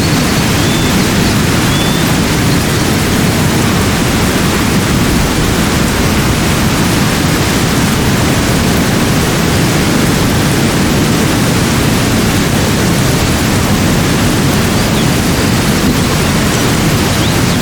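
Steady, even rushing noise of an outdoor nature ambience, heaviest in the low range. A few faint high chirps come near the start and again near the end.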